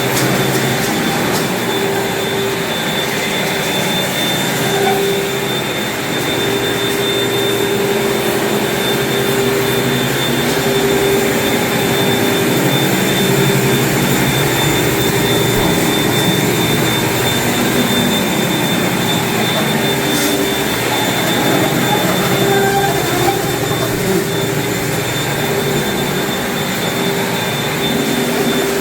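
A floor-cleaning machine's motor running steadily, with a constant high whine and a lower hum over a loud rushing noise.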